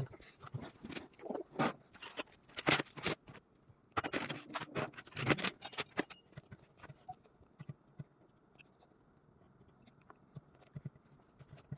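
A baby's hands tapping, scraping and squishing pieces of sweet potato on a feeding tray. The taps come thick and irregular for about six seconds, then thin out to a few faint ones.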